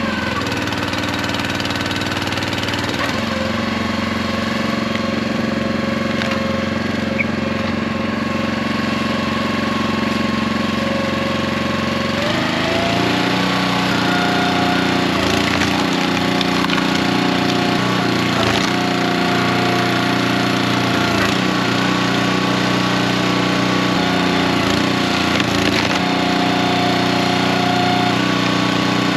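Small gasoline engine running at a steady speed, its pitch shifting once about twelve seconds in, with a few faint knocks.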